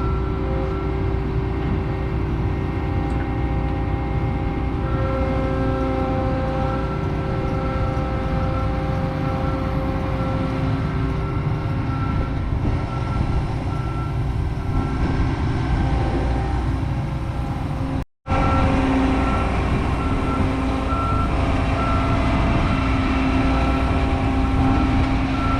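Large diesel farm machine running steadily, a constant engine rumble with several steady whining tones over it; the sound drops out for a moment about eighteen seconds in and then carries on.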